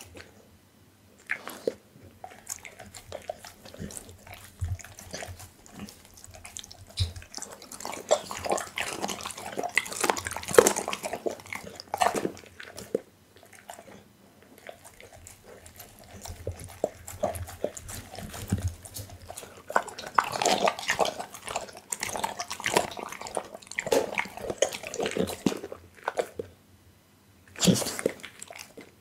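A pit bull licking and chewing raw meat right at the microphone: wet smacking, slurping and lip-licking in irregular runs, with short pauses.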